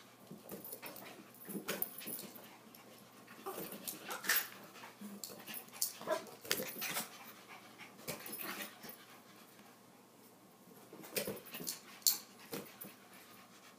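Three Yorkshire terriers panting and scuffling as they play with a balloon, with irregular sharp taps as it is batted about and a short lull about ten seconds in.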